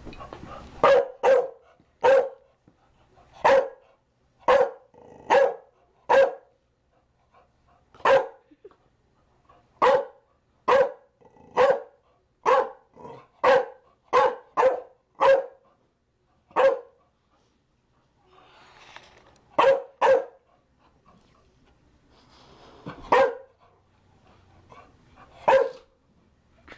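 Chow Chow barking: a run of short, single barks, mostly about one a second, with a pause of a few seconds past the middle before a few more barks.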